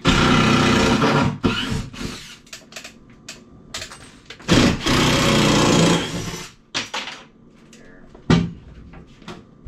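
Cordless drill-driver backing screws out of a wall cabinet: two runs of the motor, each about a second and a half long, the second starting about four and a half seconds in, followed by a few light knocks.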